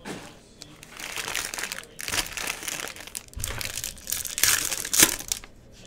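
Foil trading-card pack wrappers crinkling as they are handled and torn open by hand, in uneven bursts with the loudest crackle near the end.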